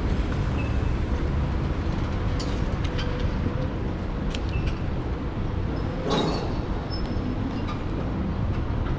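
Steady city road traffic noise, a low rumble of passing vehicles, with a brief louder burst of noise about six seconds in.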